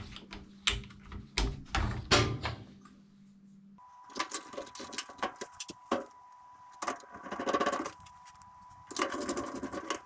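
Plastic wire-harness connectors and wiring being handled and pushed into a washing machine's control board: a run of clicks, snaps and rustles. From about four seconds in, irregular rattling and scraping continues over a faint steady high tone.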